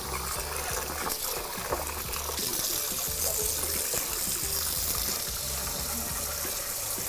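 Tap water running into a sink as an enameled cast iron skillet is washed out with warm soapy water, the flow getting louder about two and a half seconds in.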